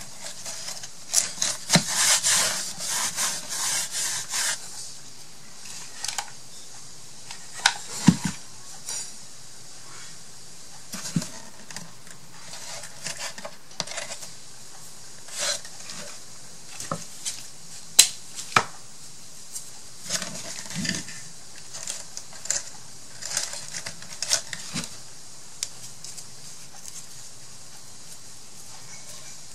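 Intermittent light clicks, knocks and rustling of small objects being handled, with a longer stretch of rustling about one to four seconds in.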